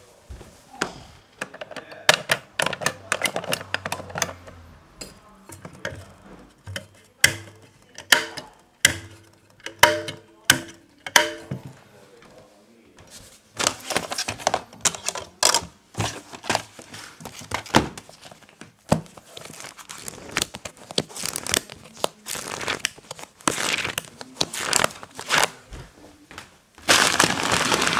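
Plastic sheeting crinkling and rustling as it is handled, in a long run of irregular sharp crackles and clicks. About a second before the end a loud, steady hiss sets in.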